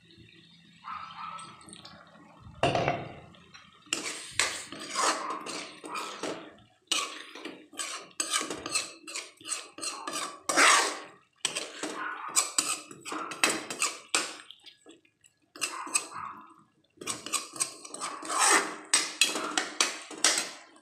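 Metal spoon stirring thick gravy in a metal pan, clinking and scraping against the pan in quick runs. The runs start a few seconds in and break off for brief pauses.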